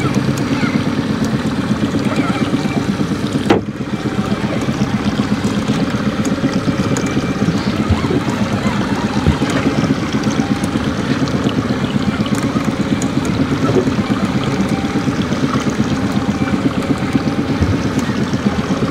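Boat's outboard motor running steadily, with one sharp click about three and a half seconds in.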